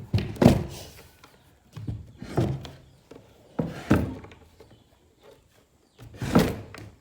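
A series of dull thuds and knocks, about five spread out with short pauses between them, heaviest in the low end.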